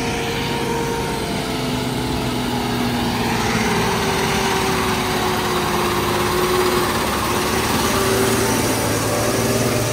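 Truck engine running steadily under load as it tries to climb a rough, raised stretch of dirt track, its pitch sagging slightly partway through.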